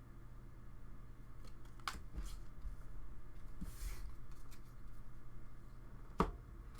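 Magic: The Gathering trading cards being handled and slid against each other: soft brushing with a few sharp clicks, one about two seconds in and one near the end.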